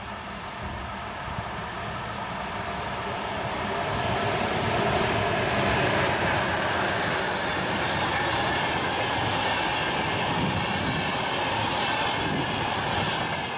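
VR Sr2 electric locomotive and InterCity double-deck coaches passing at speed: the noise builds over the first few seconds as the locomotive arrives, then holds as a steady rush of wheels on rails while the coaches go by.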